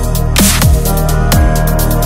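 Electronic music with a heavy, sustained bass. A bass note slides steeply downward about once a second, and a burst of noise hits about half a second in.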